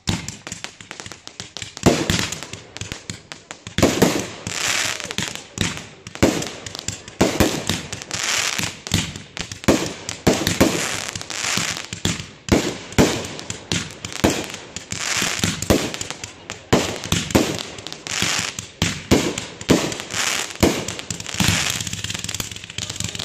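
Fireworks display: a rapid string of aerial shell bursts, about one bang every half second to a second, with crackling in between.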